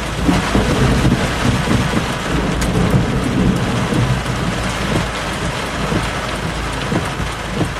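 Heavy thunderstorm rain pouring steadily, with thunder from a close lightning strike rumbling low underneath through the first few seconds.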